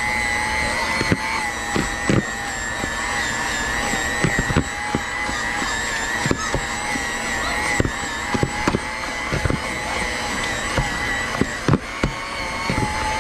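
Handheld electric mixer running at steady speed with a constant whine, its wire beaters shredding a smoked ham into pulled pork in a plastic bowl. Irregular sharp clicks and knocks come as the beaters strike the bowl and meat.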